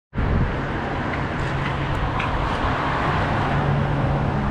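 Steady outdoor background noise with a low hum and a few faint clicks between about one and a half and two and a half seconds in.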